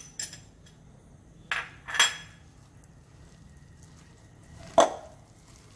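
About four sharp clinks against a glass mixing bowl, spread over a few seconds, the loudest about five seconds in, as gram flour and sliced onions are worked together in it.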